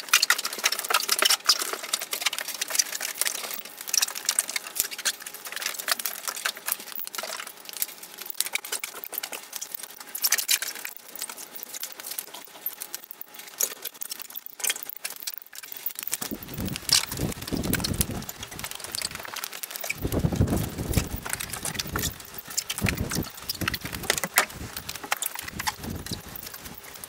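A chamois being wiped over a car's paintwork, with flip-flop footsteps on a concrete floor, heard as a run of small pats, squeaks and clicks. From about sixteen seconds in, dull low thumps and rumbles join in.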